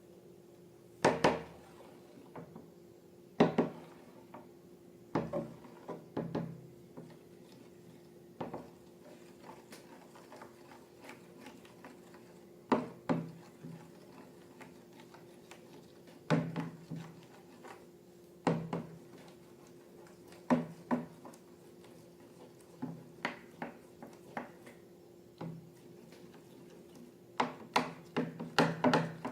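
Irregular taps, clicks and clunks of objects being handled and set down on a tabletop, spaced a second or more apart with a quick cluster near the end, over a steady low hum.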